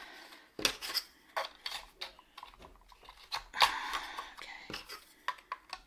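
Thin wooden panels of a flat-pack tray holder clicking, tapping and scraping as slotted dividers are handled and fitted together, in irregular light knocks.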